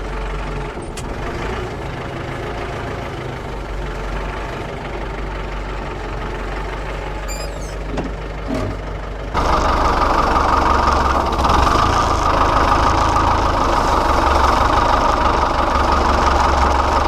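Kubota tractor's diesel engine running steadily, then throttled up abruptly about nine seconds in and held at higher revs, as when working the tractor to move logs.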